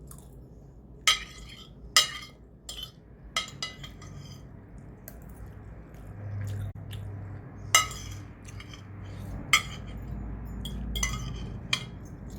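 A string of about a dozen sharp, ringing metallic clinks at uneven intervals, small metal objects knocking and jingling, with the loudest near the start, about eight seconds in and near the end.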